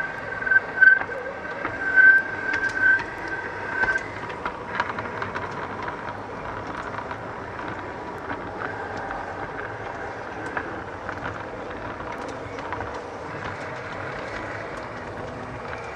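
LGB G-scale garden-railway model train running along the track, heard from on board: a steady rolling rumble with many sharp clicks from the wheels over rail joints. A high steady squeal sounds during roughly the first four seconds.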